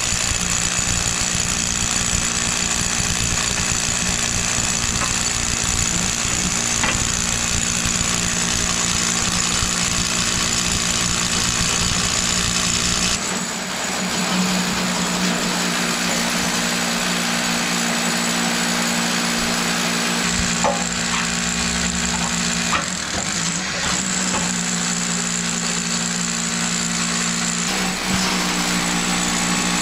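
A steady machine hum with a constant low pitch, and a few short knocks about two-thirds of the way through.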